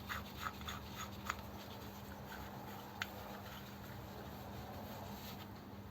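A quick run of small metal clicks and taps as the split halves of a die are handled and fitted back into the die holder, then a single click a couple of seconds later, over a faint steady hum.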